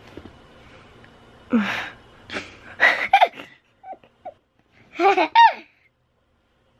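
A child laughing in short, breathy bursts, with a couple of high-pitched giggles about five seconds in.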